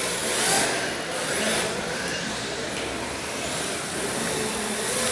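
1/10-scale electric RC drift cars running in tandem: electric motor whine and the hiss of hard plastic tyres sliding on the track surface, swelling and fading several times, over the general noise of a busy indoor hall.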